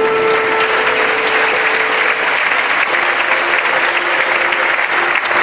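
Audience applauding in a large hall, with the orchestra's last held note dying away about two seconds in.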